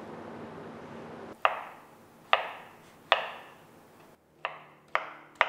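Chef's knife cutting through ripe mango flesh and knocking on a wooden cutting board. There is a series of sharp, short knocks, about one a second, which starts after a moment of faint hiss and picks up pace near the end.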